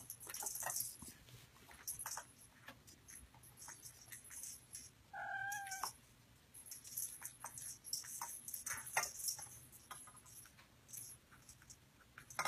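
A kitten meows once, a short call about five seconds in, over faint scattered clicks and rustles of kittens playing in a box.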